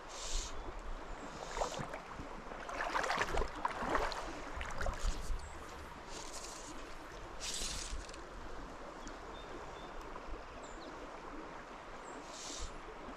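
Small stream water running steadily. About three to five seconds in there is a spell of close splashing and crackling, and a few short high hissing swishes come every few seconds.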